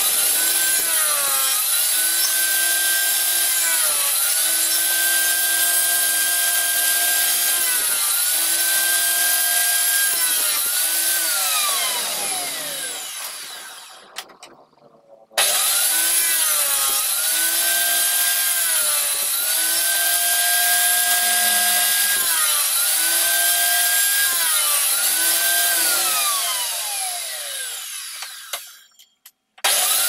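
Table saw running and ripping small pieces of wood. Its whine sags in pitch again and again as each cut loads the blade. Twice it winds down with falling pitch to silence and then starts again abruptly.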